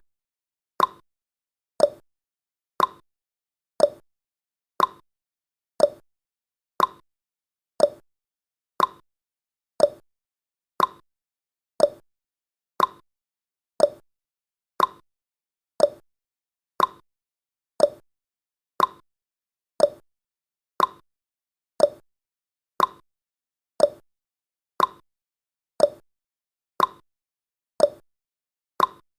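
Countdown timer's ticking sound effect: one short, crisp tick every second, evenly spaced, with silence between ticks.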